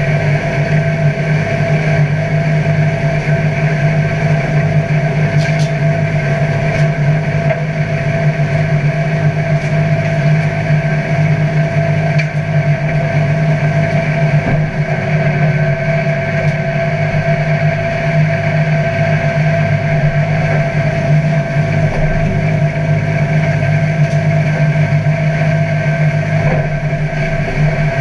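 McHale C460 straw chopper running steadily, shredding a straw bale and blowing the chopped straw out. It is driven by a Deutz-Fahr DX 4.70 tractor's air-cooled, turbocharged four-cylinder diesel, and the sound is a steady drone with a pulsing low hum.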